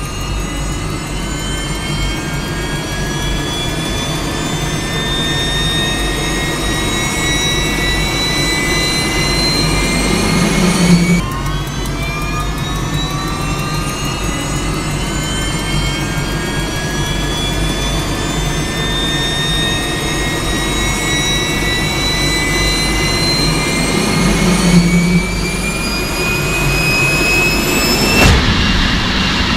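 Jet-engine spool-up whine with a steady low rumble underneath, climbing steadily in pitch. About eleven seconds in the pitch drops suddenly, then climbs again, and a broad rushing roar joins near the end as the engine comes up to power.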